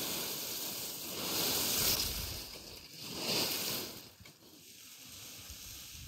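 Dry fallen leaves being raked into a pile with a wooden rake: a rustle that swells twice, loudest about two and three and a half seconds in, then eases off.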